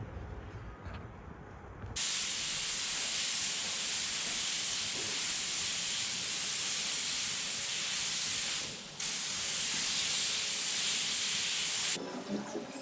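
Compressed-air spray gun spraying: a steady, loud hiss that starts abruptly about two seconds in, breaks off for a moment near the nine-second mark and stops sharply near the end. A low rumble comes before the hiss starts.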